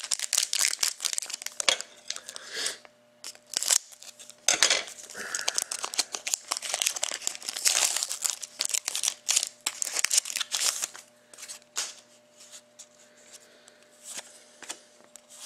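Trading card pack wrapper being torn open and crinkled, with cards shuffled and handled; irregular crackling and rustling that eases off near the end.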